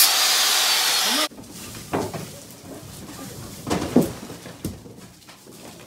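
Handheld angle grinder cutting, a loud high rushing noise that stops abruptly about a second in. After it, only faint scattered short sounds.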